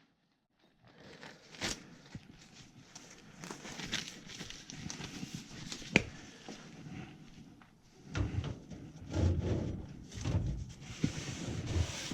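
Water poured from a container to trace a leak: a faint trickling hiss with scattered clicks and knocks, then heavier rubbing and bumping about eight seconds in.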